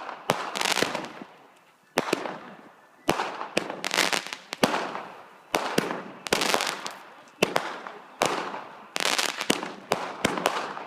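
Fireworks going off in rapid succession: a series of sharp bangs, roughly one or two a second, each trailed by crackling that fades away.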